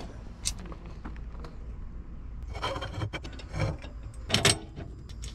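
Scattered metal clicks and knocks from hand work on a fifth-wheel RV landing gear jack, as its leg is adjusted, over a low steady hum.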